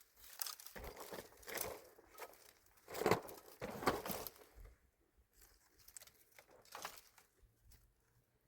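Irregular crinkling and crunching rustles, as of something being handled, loudest about three to four seconds in.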